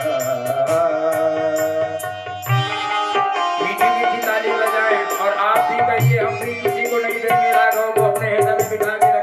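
Indian-style music with tabla drumming under sustained melodic lines, and a regular high ticking percussion beat.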